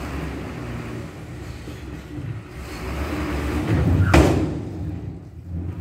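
Tipper lorry engine running at a low, steady pitch while it tips out a load of quarry dust from its raised body, with one loud bang about four seconds in.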